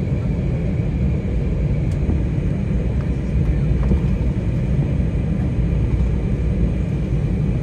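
Steady low rumble inside the cabin of an Embraer 190 airliner rolling slowly on the ground, its GE CF34 turbofan engines at low power with a faint high whine above the rumble.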